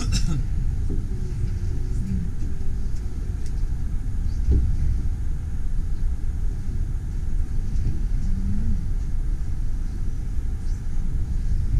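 Low steady rumble of a train carriage rolling slowly along a ferry's rail deck, heard from inside the carriage, with a single thump about four and a half seconds in.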